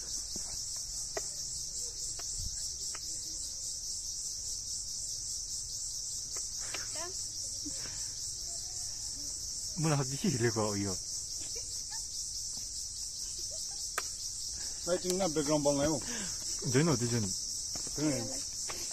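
Steady, high-pitched insect chorus, a fast pulsing trill of crickets or cicadas, with brief voices twice.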